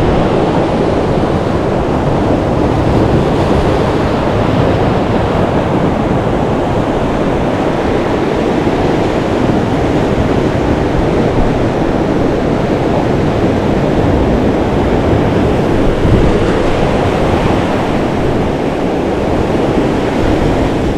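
Ocean surf breaking and washing across a rock platform close by, a steady loud rush of water with no let-up.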